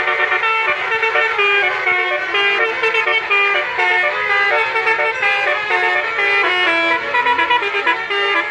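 Basuri musical horn on a tow truck playing a fast melody, one short note stepping to the next.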